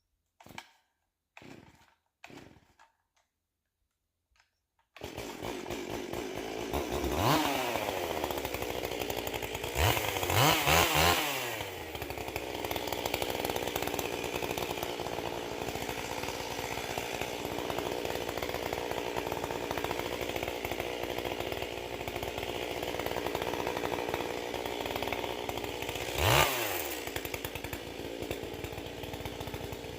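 Two-stroke chainsaw that comes in suddenly about five seconds in and runs steadily, revved up and back down three times, near the start, around ten seconds in and near the end. Before it, three short faint sounds in near quiet.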